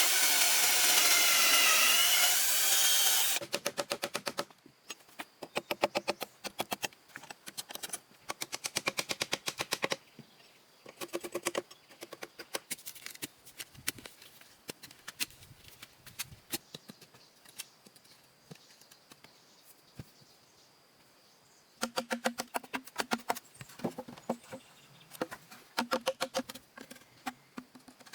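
A power tool runs loudly with a wavering pitch and cuts off about three seconds in. It is followed by runs of rapid light tapping or clicking strokes, several a second, with a pause past the middle and a busier stretch near the end.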